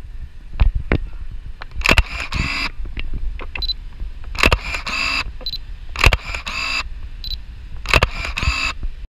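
Electric commuter train crossing a railway bridge: its wheels clatter over the rail joints in groups of sharp, ringing clicks about every two seconds, over a low rumble.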